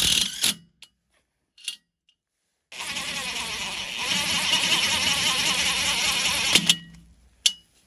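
Cordless impact driver driving a Tek 5 self-tapping screw into a steel post, the screw cutting its own way through an undersized pilot hole. There is a brief burst at the start, then about four seconds of steady rapid hammering that stops sharply, followed by a short metallic tick.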